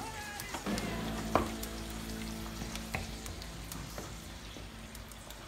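Spinach, tomato and cod broth sizzling in a steel pan while a wooden spatula stirs it, with a few knocks of the spatula against the pan. A steady low hum runs underneath.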